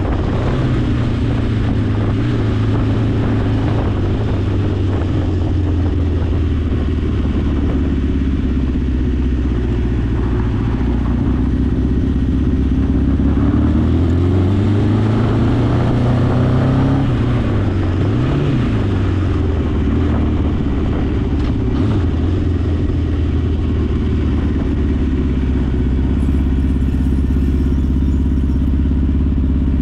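1981 Honda CB900's air-cooled inline-four engine running, rising in pitch as it revs up about halfway through, dipping and revving briefly again, then settling back to a steady note.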